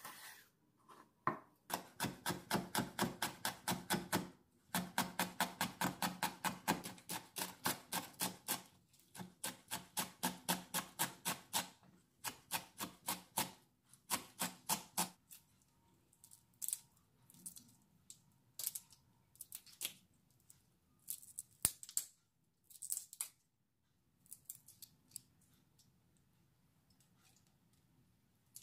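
Kitchen knife chopping peppers on a wooden cutting board: quick, even knocks, about six a second, in runs with short pauses. After about fifteen seconds the strokes turn sparse and scattered, and they die away a few seconds before the end.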